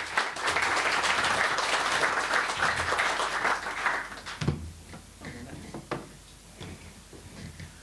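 Audience applauding, with dense clapping that dies away about four seconds in and leaves a few scattered claps and small knocks.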